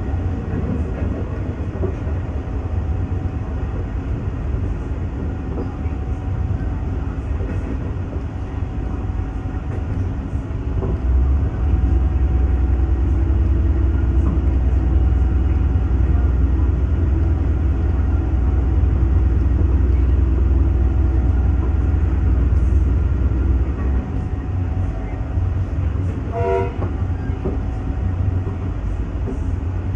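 Diesel train running with a steady low rumble that grows louder for about twelve seconds in the middle, then eases. A brief pitched note sounds near the end.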